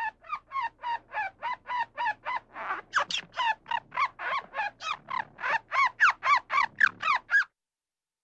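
An animal calling in a fast, even series of about four calls a second, each call rising and falling in pitch. The calls grow louder in the second half and stop abruptly a little past seven seconds in.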